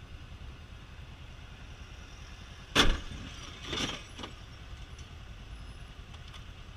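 Motorcycle moving slowly through traffic, its engine and road noise a steady low rumble. About three seconds in there is a sharp knock, the loudest sound, followed within the next second and a half by two shorter, noisier bursts.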